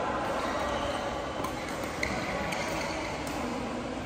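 Busy badminton hall: a steady hum of the hall and chatter from the courts, with a few sharp clicks of rackets hitting shuttlecocks and a short shoe squeak about two seconds in.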